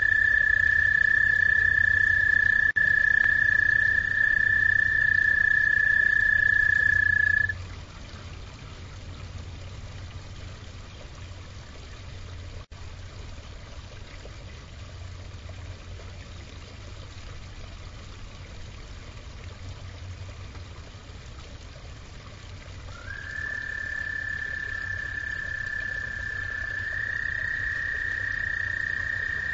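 Frog calling in a long, steady, high trill that stops abruptly about seven seconds in; after a quieter stretch, a new trill starts with a short upward slide about 23 seconds in and runs on. A low steady hum runs underneath.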